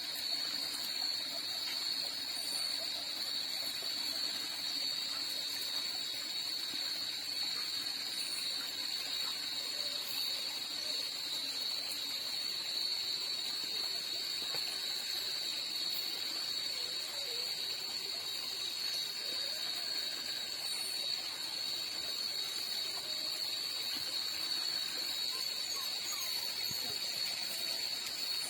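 Night insect chorus, crickets or katydids, making a steady high-pitched ringing drone without a break.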